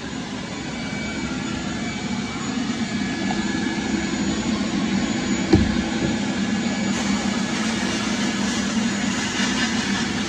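Sandblast cabinet running: the blast gun hisses steadily as it throws abrasive (roofing-shingle granules) against a rusty steel Mustang spindle. There is one short knock about five and a half seconds in.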